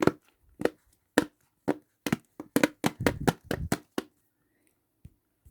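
Silicone dimple fidget's bubbles being pushed, a series of about fifteen sharp pops. They come slowly at first, then quicker, and stop about four seconds in.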